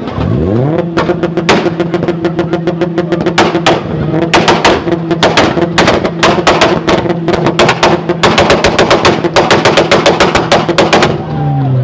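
Car engine revved up within about a second and held at a steady high rpm, with loud exhaust pops and bangs crackling over it: scattered at first, then a rapid rattle like gunfire from about four seconds in, typical of an engine held on the limiter spitting flames. The revs drop away near the end.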